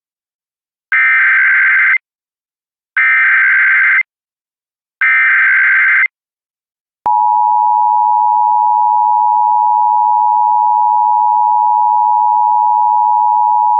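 Emergency Alert System header: three one-second bursts of SAME digital data tones, a harsh warbling screech, about a second apart. Then, about seven seconds in, the steady two-tone EAS attention signal starts and holds.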